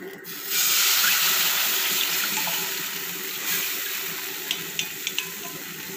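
Wheat flour batter pouring from a bowl into a hot kadai, hissing as it hits the pan; the sound starts suddenly about half a second in and slowly dies away. A few light clicks come near the end.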